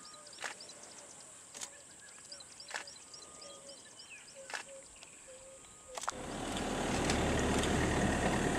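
Birds calling in short repeated chirps, with a few sharp clicks, over a quiet background; about six seconds in a vehicle engine starts up and runs steadily with a low hum.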